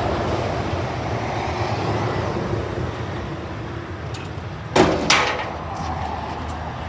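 An engine running steadily in the background, with two sharp bangs close together just under five seconds in.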